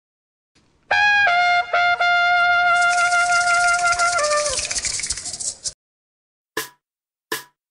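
Short trumpet jingle: a couple of quick notes, then one long held note that steps down and fades out, with a bright hiss joining about halfway. Two short taps follow near the end.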